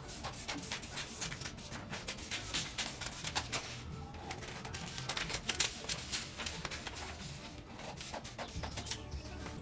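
Scissors cutting through pattern paper: a run of short, crisp snips mixed with paper rustling.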